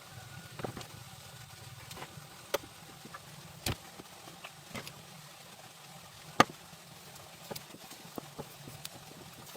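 Scattered sharp clicks and knocks over a faint low hum, the loudest about six and a half seconds in.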